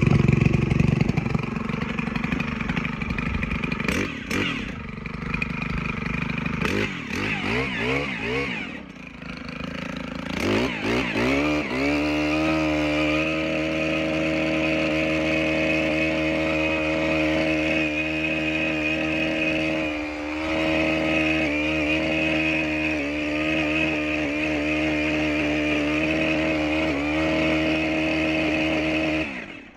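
Petrol earth auger's engine revving up and down unevenly, then held at high revs from about ten seconds in while the bit drills a fence-post hole, the note dipping briefly about two-thirds through. The bit is hitting tree roots or bedrock at about 400 mm down.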